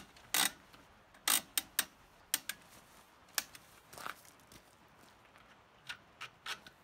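Ratcheting wheel hold-downs on a Rockymounts Backstage 2 hitch bike rack clicking as a bike is clamped onto the tray: about a dozen sharp, irregularly spaced clicks.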